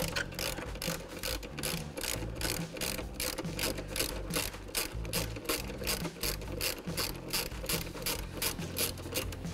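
Hand ratchet with a 10 mm socket clicking steadily, about four clicks a second, as it backs out a 10 mm bolt.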